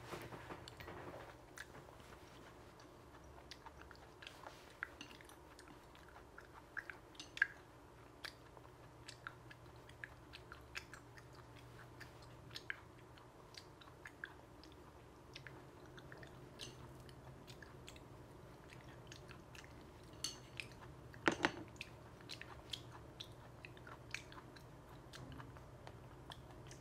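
A person chewing raw coconut worms (red palm weevil larvae) soaked in fish sauce with chillies: faint, wet mouth clicks and smacks as the tough, chewy skins are worked, with a louder run of chewing noises about three quarters of the way through.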